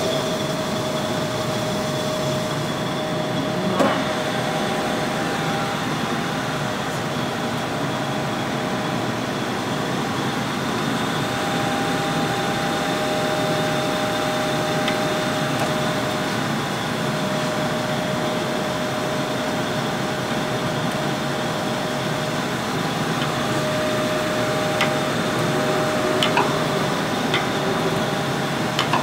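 Jones & Shipman 540 hydraulic surface grinder started from its push-button panel and running: a steady motor hum with a constant whine. There is a sharp click about four seconds in and a few light clicks near the end.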